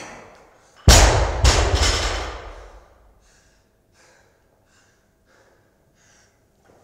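A loaded barbell with bumper plates dropped to the floor after a clean: one heavy thud about a second in, a second hit as it bounces, then the plates rattle and settle over about two seconds.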